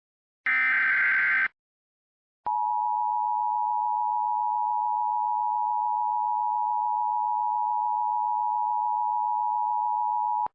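Emergency Alert System signal: a one-second screech of the SAME digital header data, a second of silence, then the steady EAS attention tone held for about eight seconds before it cuts off sharply.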